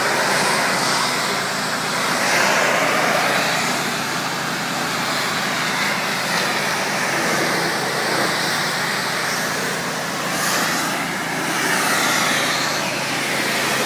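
Pressure washer running: a steady motor hum under the loud hiss of the high-pressure water jet, which swells and fades every few seconds.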